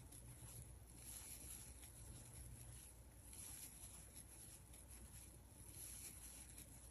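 Near silence with faint, soft, irregular rustles of yarn being drawn through loops with a crochet hook as double crochet stitches are worked.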